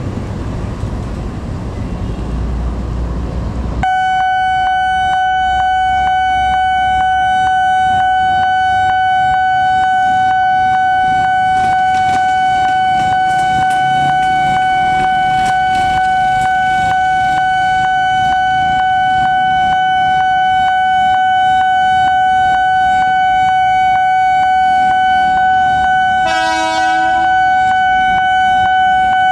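Railroad level-crossing warning alarm switching on about four seconds in: a loud, steady, high electronic tone with a regular clicking beat, sounding on as the crossing is closed for a train. Near the end a train horn gives one short toot.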